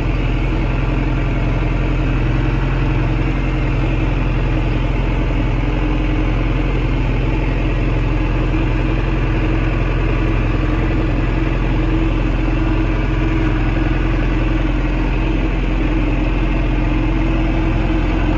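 John Deere tractor's diesel engine running steadily, heard from inside the tractor cab.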